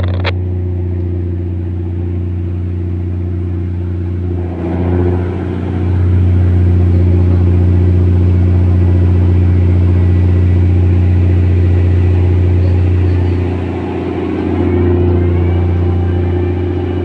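Tugboat diesel engine running with a steady low drone. It grows louder about six seconds in and eases off briefly near the end, as the engine is worked while the coal barges are manoeuvred alongside.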